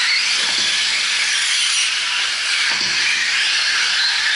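Radio-controlled 4WD short course trucks racing on a dirt track: a steady high hiss of their motors, drivetrains and tyres, with faint whines rising and falling as they speed up and slow.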